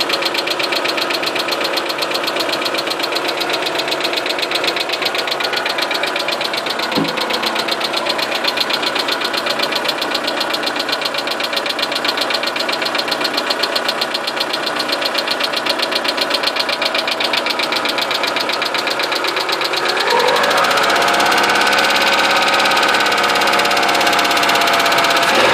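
Engine running with a rapid, regular knock. It is revved up about twenty seconds in, held at higher speed, and let back down at the very end.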